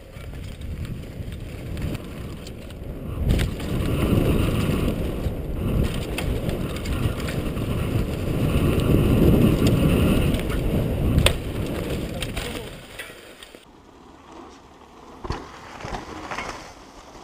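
Mountain bike rolling fast down a dirt trail covered in dry leaves: a loud, noisy rumble of tyres and rattling bike, with a couple of sharp knocks over bumps. It drops away to a much quieter sound about three-quarters of the way through.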